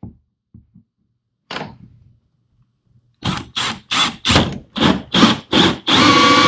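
Cordless drill with a hole saw starting a hole in a plastic kayak hull: a quick run of short trigger-pulsed bursts, about three a second, then running steadily near the end as the saw bites in. A light thunk comes about a second and a half in.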